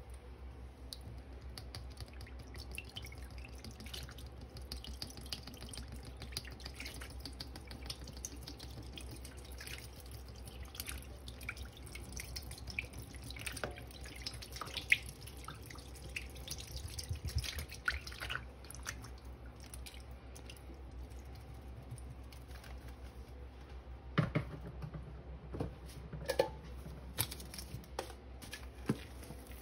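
Red liquid cleaner squirted from squeeze bottles onto wet sponges in a stainless steel sink, with dripping and a fine crackle of popping bubbles. A few louder taps come near the end, over a steady low hum.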